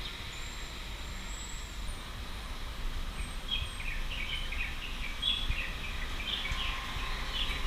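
Steady low rumble of city traffic, with birds chirping over it in short calls from about three seconds in.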